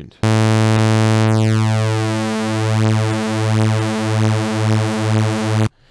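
Two detuned sawtooth oscillators in a software synth holding one low, buzzy bass note. It starts steady, then the two saws drift in and out of phase, giving a pulsing 'na-na-na' rhythm that speeds up as the detune widens. The note stops suddenly near the end.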